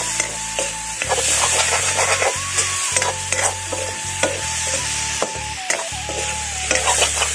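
A spatula stirring and scraping chicken and leafy greens around a large iron wok, with the food sizzling in the hot oil. The scrapes come as frequent irregular strokes over a steady sizzle.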